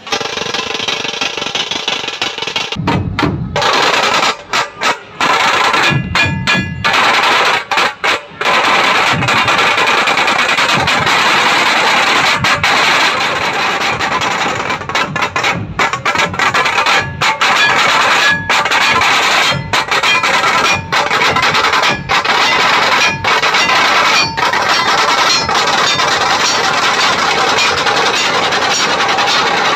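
Dhol-tasha troupe drumming: tasha drums beaten fast with sticks over heavy dhols, loud and continuous, with a few short breaks near the start.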